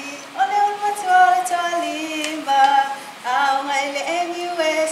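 Voices singing unaccompanied, mainly women's, in a simple tune of held notes that step up and down in pitch.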